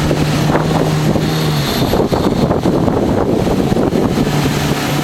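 15-horsepower outboard motor of a river longboat running, with water rushing past the hull and wind buffeting the microphone. The motor's steady hum drops away about a second and a half in and comes back near the end.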